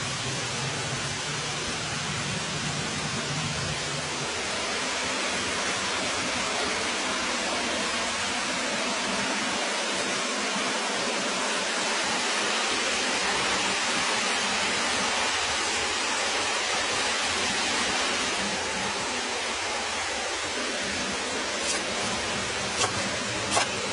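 A steady, even hiss, with three sharp knocks near the end as a cleaver chops grilled pork on a cutting board.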